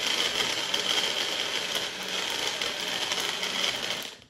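Shimono personal blender's motor running at full speed, blending frozen banana, milk and chocolate into a smoothie, a steady high whine; it runs only while the cup is pushed down and cuts off suddenly just before the end.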